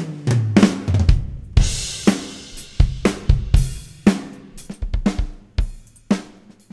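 Drum kit playback: recorded acoustic drums with the kick and snare enhanced by Superior Drummer 3 replacement samples, playing a beat of kick and snare hits. A cymbal crash rings about a second and a half in.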